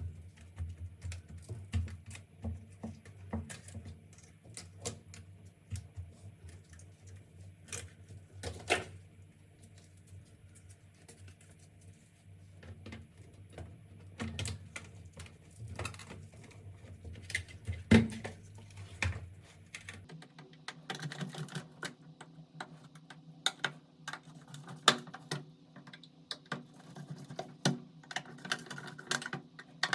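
Computer keyboard keys clicking and clacking in irregular runs over a low steady hum, the clicks coming thicker and faster about two-thirds of the way through.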